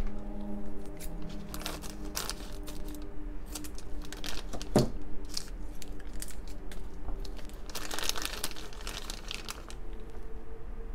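Clear plastic Happy Meal toy bag crinkling in irregular short bursts as hands open it and pull the toy out.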